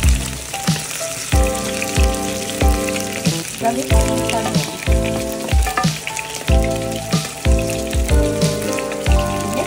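Eggplant pieces frying in oil in a pot, a steady sizzle, under background music with a steady beat and held chords.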